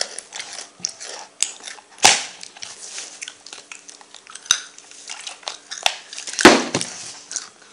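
Crunchy chewing and biting close to the microphone, with scattered clicks and two louder crunches, about two seconds in and near the end.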